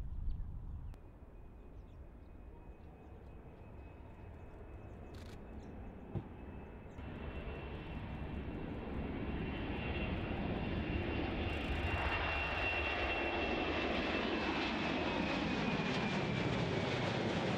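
US Navy P-8 Poseidon's twin CFM56 turbofan jet engines growing steadily louder as the aircraft approaches. A high turbine whine runs throughout and drops slightly in pitch near the end as it passes.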